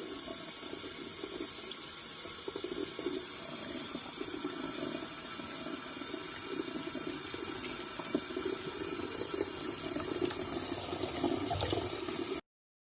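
Steady running water, a continuous splashing flow that cuts off abruptly near the end.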